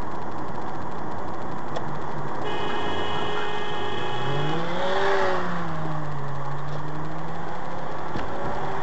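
Car road and engine noise heard from inside the cabin; a car horn sounds for about two seconds, then an engine revs up and falls back.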